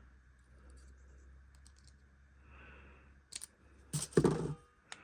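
Small plastic and metal model-locomotive parts being handled on a bench: a few light clicks and taps, with a louder knock of parts just after four seconds.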